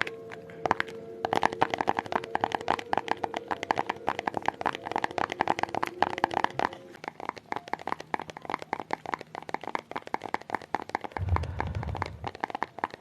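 Rapid light ASMR tapping on a hard object, many quick taps a second. A low rumble comes in briefly near the end.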